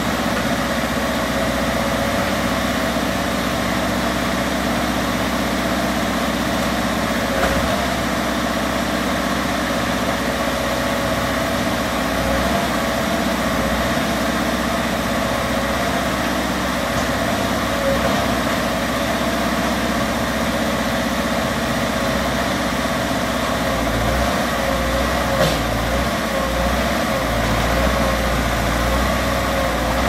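Backhoe loader's diesel engine running steadily at low revs, with a faint high whine above it that wavers slightly in pitch.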